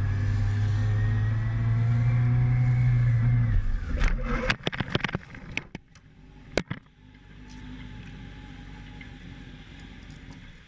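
Motorcycle engine running steadily, rising slightly in pitch, then cutting off suddenly about three and a half seconds in as the bike goes down. A rapid run of sharp knocks and clatters follows over about a second and a half, then one more sharp knock, and after that only a quieter steady hum.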